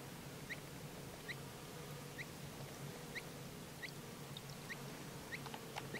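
A small bird calling: a short rising chirp repeated about once a second, over a faint steady hum.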